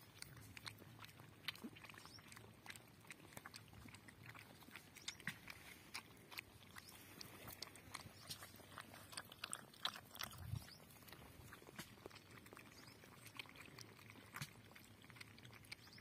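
Several puppies feeding together from a metal bowl of buttermilk and flatbread: faint, irregular wet lapping and chewing clicks.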